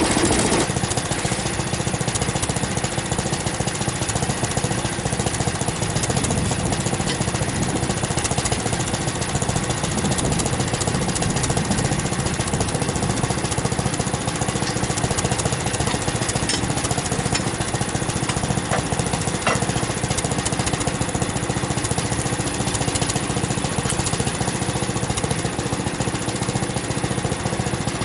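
Frontier OS23 portable bandsaw mill running steadily under its gas engine, the blade cutting a cottonwood log, with a rubbing that the owner thinks needs greasing.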